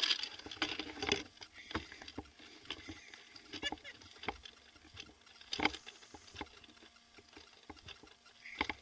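Faint, irregular light clicks and scuffs of a player moving about.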